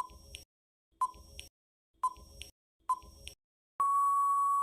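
Quiz countdown-timer sound effect: a short electronic beep about once a second, four times, each followed by a faint click, then one long steady beep near the end that marks time up.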